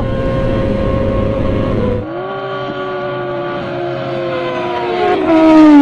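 Sport motorcycle engine running at high revs with wind rush, heard from on board. After a cut about two seconds in, sport motorcycles approach at speed with a high-pitched engine whine that grows louder, and one passes close near the end, its pitch dropping as it goes by.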